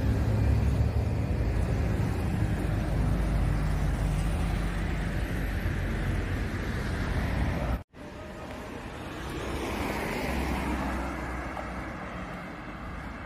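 Road traffic noise with a heavy low rumble. After a sudden break about eight seconds in, it is quieter, and a car passes by, swelling and then fading away.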